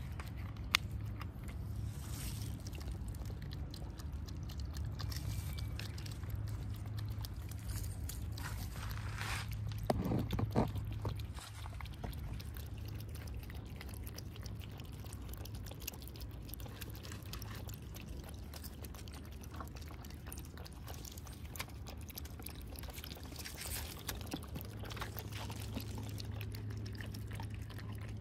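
Stray cats eating at close range from a shared plate, lapping milk and chewing soft food with quick wet clicks and smacks. A steady low hum runs underneath, and a short louder sound comes about ten seconds in.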